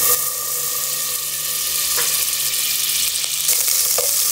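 A cube of butter sizzling as it melts in a hot pot: a steady hiss, with a couple of light clicks, one about two seconds in and one near the end.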